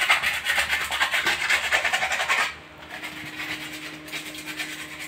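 Sandpaper rubbed quickly back and forth on the cut end of a plastic (PVC) water pipe, roughening it so silicone sealant will stick. The strokes are loud for about two and a half seconds, then go on more lightly.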